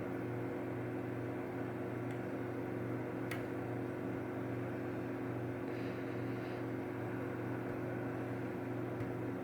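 Steady low mechanical hum, with a couple of faint sharp clicks about two and three seconds in from the pick working the pins of a Mul-T-Lock Interactive lock.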